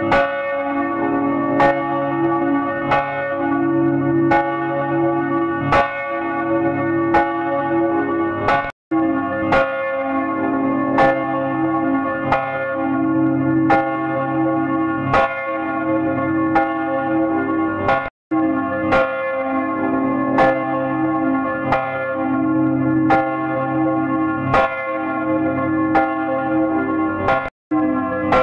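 Church bell ringing, struck about every second and a half, each strike ringing on into the next. The sound drops out for a split second three times, about every nine seconds.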